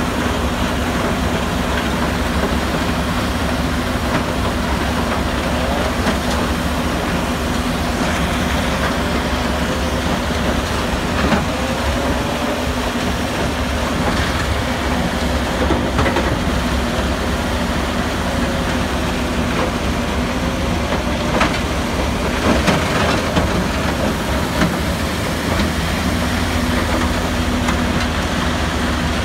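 Tracked mobile crusher running steadily as it crushes broken concrete into road base, a continuous heavy mechanical clatter over a steady engine drone. Now and then a louder knock stands out as chunks of concrete are dropped in and broken.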